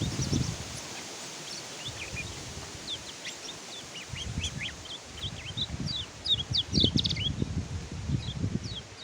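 Kecial kuning white-eye (burung pleci) singing: a fast run of short, high, falling chirps that grows busier midway through, over a low rumbling background noise.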